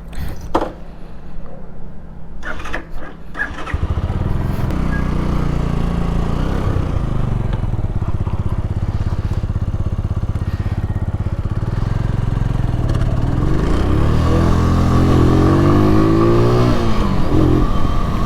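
Keeway Superlight 125 motorcycle's 125 cc V-twin engine: a few clicks and knocks, then from about four seconds in the engine runs steadily. Near the end its pitch rises and falls several times as the bike pulls away and shifts up through the gears.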